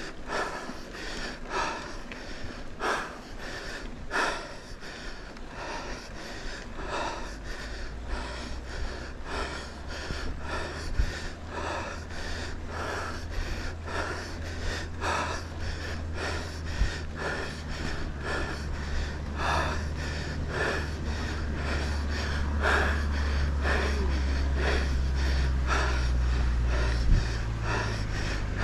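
A cyclist breathing hard and fast after a steep climb, with rhythmic breaths coming more than once a second. From about a third of the way in, a low rumble builds up underneath and grows louder.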